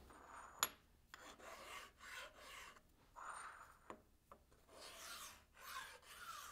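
Faint scraping strokes of a hand tool drawn along the edge of an aluminium block, with a couple of light metallic clicks.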